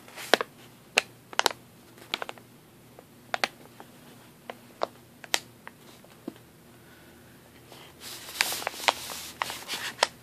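A plastic Ricola cough drop bag being crinkled by hand: scattered sharp crackles, turning into a denser run of crinkling near the end.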